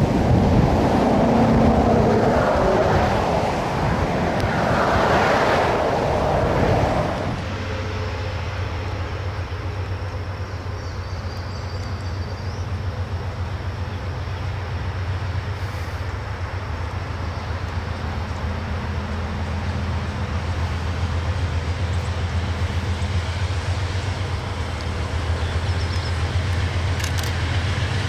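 Wind buffeting the microphone for about the first seven seconds, then a steady low diesel drone from an approaching freight locomotive that slowly grows louder.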